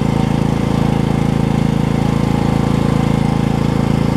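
Coleman generator's Briggs & Stratton Vanguard engine running steadily under load, powering a window air conditioner.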